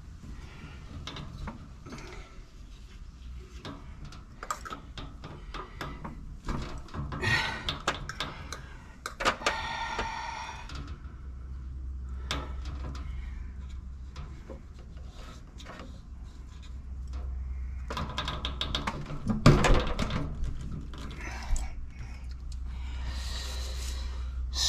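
Clicks, taps and scrapes of CPVC pipe fittings and hand tools being handled on top of a water heater, with a low steady hum coming in about halfway through.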